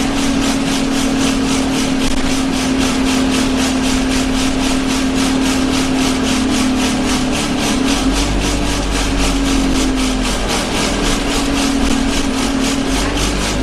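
Inside an Alexander Dennis Enviro 200 single-deck bus under way: a steady drone from the running bus with a low rumble beneath it, and over it a loud vibration pulsing in an even rhythm of about three to four beats a second.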